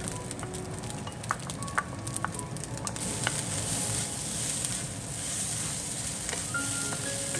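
Fried brown rice with egg sizzling in a wok while a wooden spatula stirs and tosses it and diced red pepper is tipped in. There are a few sharp taps of the spatula against the pan between about one and three seconds in.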